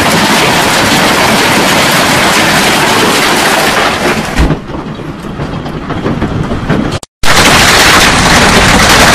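Hail falling hard: a loud, dense hiss of countless small impacts. It weakens about four and a half seconds in, cuts out for a moment about seven seconds in, and comes back just as loud as a second heavy downpour of hail and rain.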